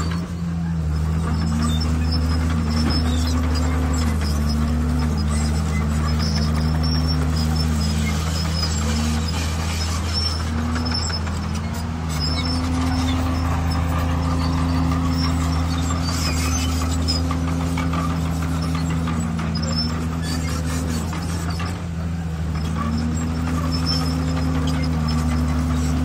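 Diesel engine of heavy earthmoving machinery running steadily, its pitch dipping and recovering several times as it takes load, most often in the first half and again a little before the end.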